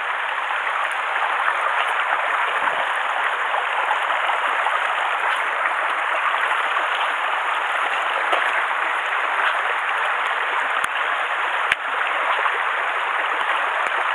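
Mountain stream running steadily over rocks, an even rush of water. Two faint clicks come close together about eleven seconds in.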